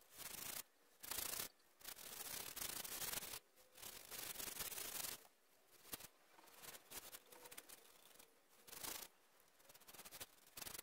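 Paintbrush strokes laying water-based varnish onto grooved wooden decking boards: a run of faint bristle swishes, louder through the first five seconds and softer after.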